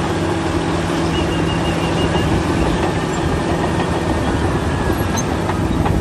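Caterpillar D9T crawler bulldozer at work: its diesel engine runs at a steady drone under a continuous clatter as it pushes dirt.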